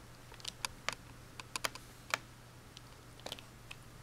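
Light, irregular clicks of keys pressed on a white MacBook's keyboard, some coming in quick pairs, over a faint steady low hum.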